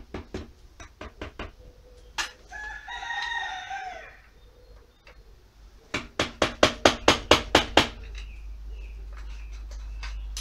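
A rooster crows once, about two and a half seconds in. Near the middle comes the loudest sound: a fast run of about a dozen sharp knocks, some six a second, over about two seconds. Light clicks from hand tools come before the crow.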